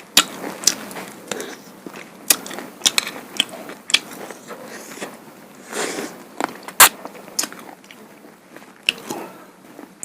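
Close-up eating sounds of a person chewing duck bhuna and rice-flour pitha: wet chewing with irregular sharp smacks and crunchy clicks, one louder snap about two thirds of the way in.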